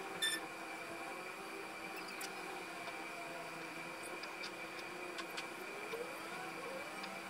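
Light clicks and ticks of small model parts being handled, against a steady room hum with a thin high whine. There are a couple of brief rising squeaks near the end.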